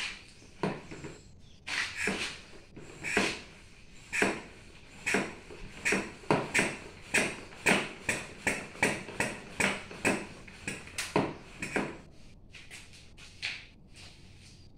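Hand-pumped vacuum oil extractor being pumped: a few slower strokes, then a quick even run at about two to three strokes a second that stops near the end. The pumping builds vacuum in the bottle to suck the engine oil out.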